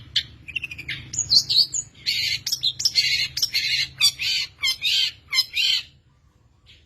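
Long-tailed shrike (pentet) singing: quick high chirps and short whistled notes, then a fast series of loud harsh, rasping notes at about three a second that stops shortly before the end.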